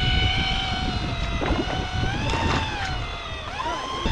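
Electric deep-drop fishing reel whining as it winds line up from the bottom, its pitch sagging and recovering twice as the hooked fish pulls against it. Wind and boat rumble sit underneath.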